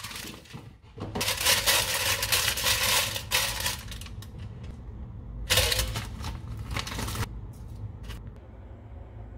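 Parchment paper crinkling and rustling as it is folded and pressed into a metal air fryer basket, in two stretches: one from about a second in lasting a couple of seconds, and a shorter one a little past the middle.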